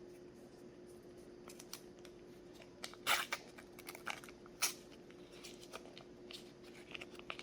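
Scattered light clicks, taps and rustles of kitchen handling as pats of butter are cut and added to the pot, the loudest a little after three seconds in and again near five seconds. A faint steady hum runs underneath.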